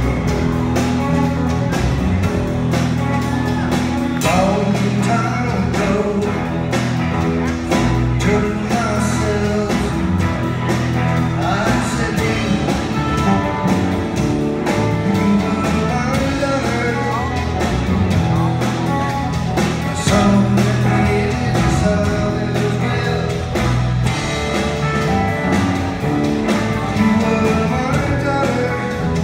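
Rock band playing live through a theatre PA, heard from the audience: electric guitar, bass guitar and drum kit.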